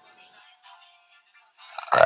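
Faint background music with steady held tones, then near the end a loud burp begins.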